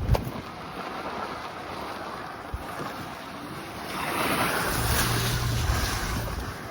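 Wind buffeting the microphone, a steady rushing noise that grows louder about four seconds in.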